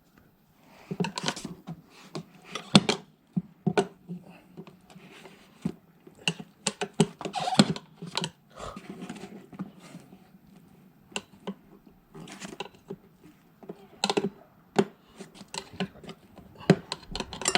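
Irregular clicks, taps and knocks of hand tools and small metal parts during moped repair work, typical of working a bearing and collar out of a wheel hub.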